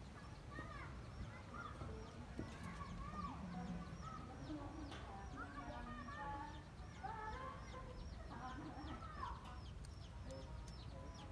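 Birds calling: a small bird repeats a short, high, falling chirp about three times a second, under scattered clucking calls.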